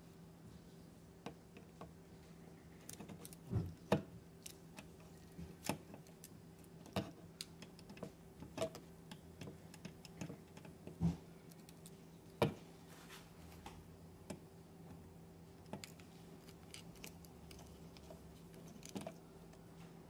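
Small screwdriver tip of a Victorinox Swiss Army knife clicking and scraping in the slot of a wall switch plate screw as it is fitted and turned: scattered light metal clicks, irregular and a second or more apart, over a faint steady hum.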